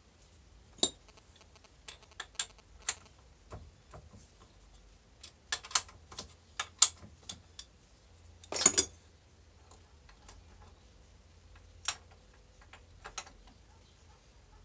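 Irregular metallic clinks and taps of tools and steel parts being handled at a stopped lathe's toolpost. There is a cluster of clinks in the middle and a short rattle a little past halfway, the loudest sound.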